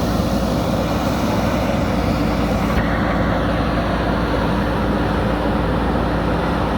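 Diesel engine of a JCB backhoe loader running steadily with an even low hum. The high hiss drops away about three seconds in.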